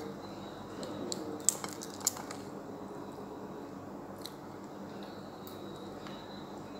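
Cooked blue swimming crab being pulled apart by hand: a few short cracks and clicks of shell as the meat is picked out, with faint wet handling.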